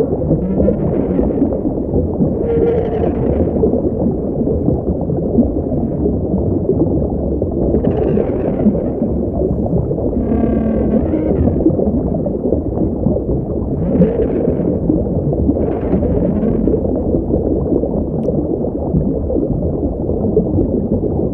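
Made-up Liopleurodon sound effect: a steady low underwater-style rumble with whale-like calls recurring every few seconds, about six of them.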